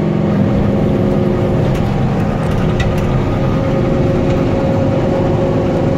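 Kioti tractor's diesel engine running steadily under load, driving a rotary tiller that cuts up new sod.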